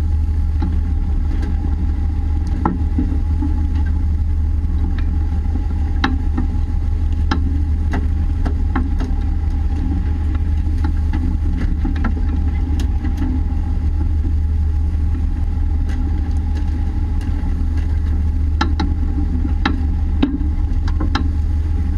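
Fishing boat's engine running steadily, a deep unbroken drone with a faint steady whine above it. Scattered sharp knocks and clicks come from work on deck.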